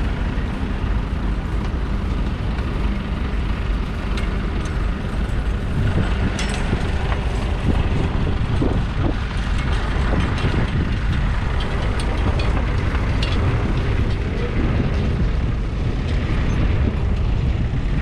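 A steady low rumble throughout, with faint scattered clinks and scrapes from a pair of horses drawing a single-furrow horse plough through stubble.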